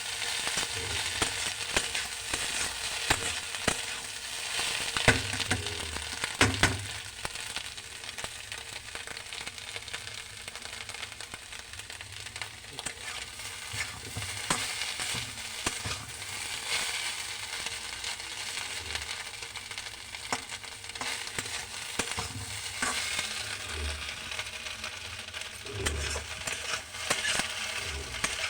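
Food sizzling steadily in a hot pan while a spatula stirs it, with scattered knocks and scrapes against the pan.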